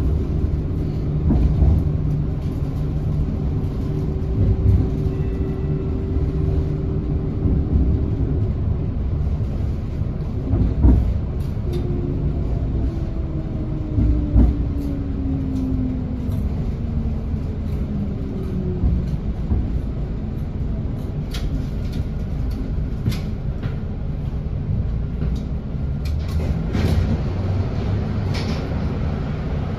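TriMet MAX light-rail train running, with a steady low rumble of wheels on rail. A steady motor whine gives way, about halfway through, to a whine that falls in pitch over several seconds, and there are a couple of knocks and scattered clicks.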